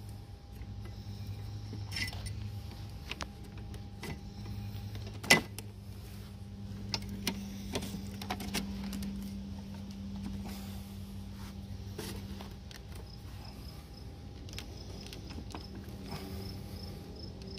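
Scattered plastic clicks and knocks of a lawn mower's handle and bar clamps being handled and fitted, with one sharp click about five seconds in, over a steady low hum. Faint, regular insect chirping comes in during the second half.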